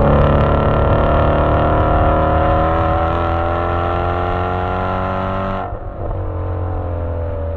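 2017 Shelby GT350's flat-plane-crank 5.2-litre V8 heard through its exhaust, holding a steady mid-range note. About six seconds in, the sound suddenly thins and the engine note starts to sink slowly.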